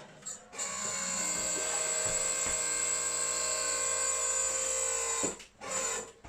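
A steady mechanical whine from a small machine, about four and a half seconds long, then two short bursts of the same sound near the end.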